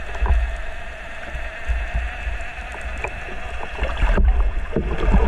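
A boat motor's steady hum heard through the water, with low rumbling thumps that come and go and scattered faint clicks; the rumble gets louder near the end.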